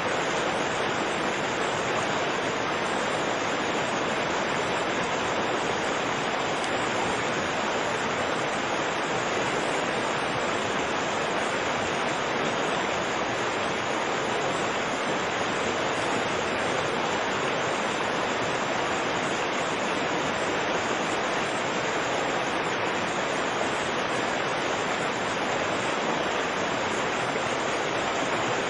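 Fast-flowing river rushing steadily, a dense, unbroken water noise with no changes.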